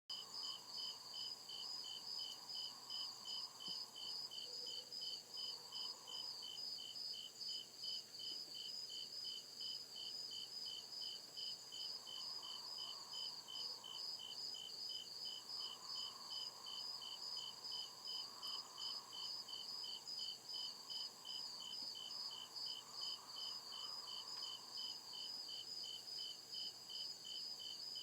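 Crickets chirping in a steady, evenly repeating rhythm of high-pitched pulses.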